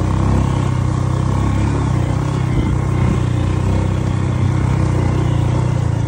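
Motorcycle engine running steadily while the bike is ridden, a continuous low drone with no let-up.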